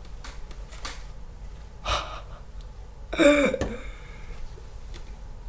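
A person's short gasp or wordless exclamation, falling in pitch, about three seconds in, after a brief breathy burst about two seconds in; a few light clicks of small parts being handled.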